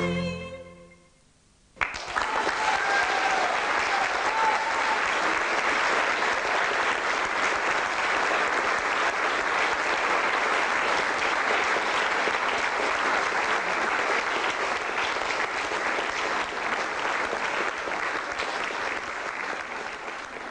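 The last notes of the music die away; after a short pause a theatre audience breaks suddenly into long, steady applause, with a few shouts from the crowd in the first seconds, fading out near the end.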